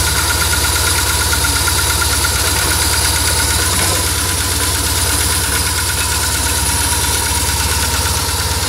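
BMW R1150GS's air/oil-cooled boxer twin engine idling steadily, with an even low beat and no revving.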